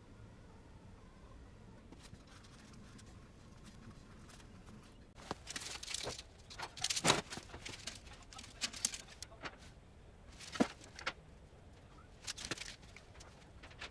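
A steel tape measure being pulled out and handled: short scraping rattles and sharp clicks, scattered, starting about five seconds in after a few quiet seconds.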